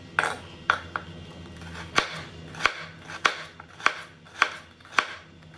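Kitchen knife slicing through a bitter melon onto a cutting board: about nine sharp knocks at a steady pace, a little under two a second.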